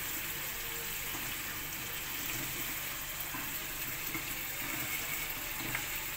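Milk pouring in a steady stream from a plastic pouch into a steel pot partly full of milk, a continuous splashing of liquid into liquid.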